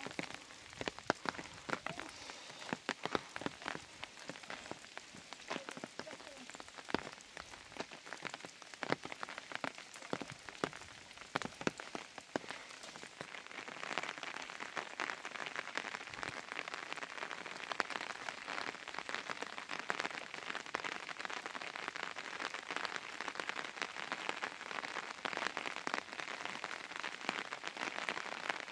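Rain pattering on a surface, with many sharp individual drops, growing heavier and denser about halfway through.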